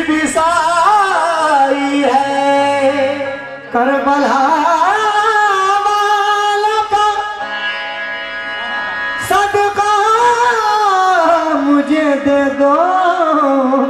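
Qawwali singing: a male lead voice sings ornamented, melismatic lines over harmonium accompaniment. Just past halfway the voice drops out for a few seconds of steady held chords.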